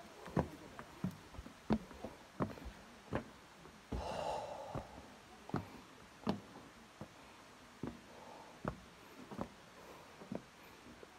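Footsteps on a metal-framed stairway and walkway, a sharp step about every 0.7 seconds, with a short breathy exhale about four seconds in.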